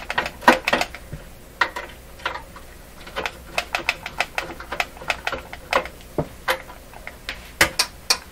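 Irregular clicks and knocks, a few each second, from a Robertson screwdriver working screws out of a Hallicrafters S-40A shortwave receiver's cabinet, with the tool and loose screws knocking against the set.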